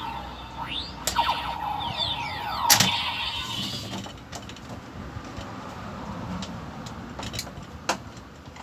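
DX Gavv transformation belt toy playing electronic sound effects through its small speaker: swooping up-and-down pitch glides with sharp clicks in the first few seconds, then fading away, with another click near the end.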